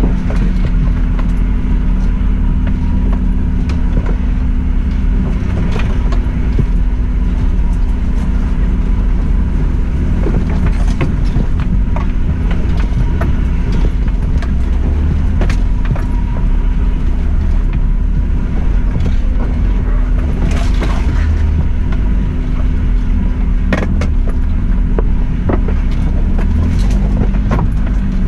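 Suzuki Jimny driving slowly over a rough green lane, its engine running at a steady low drone while the vehicle knocks and rattles over ruts and stones.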